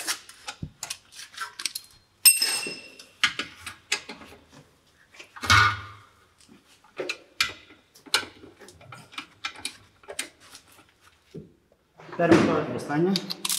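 Ratchet and 19 mm socket working a BMW front brake caliper bolt loose: scattered metal clicks and clanks of the tool, with one ringing metallic clink about two seconds in.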